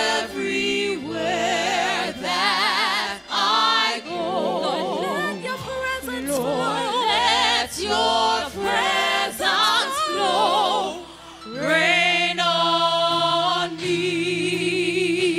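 Gospel vocal group singing with heavy vibrato over a low sustained accompaniment. The voices drop away briefly about eleven seconds in, then come back on a long held note.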